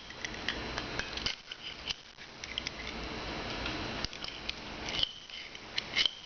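Light metallic clicks and taps as a thin stick is worked against the spring of a pair of locking pliers to get it off, with a couple of sharper clicks near the end.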